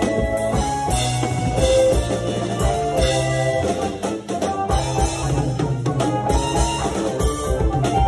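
Acoustic drum kit played with sticks, drum and cymbal hits over music with a held bass line and chords. It breaks off briefly about four seconds in.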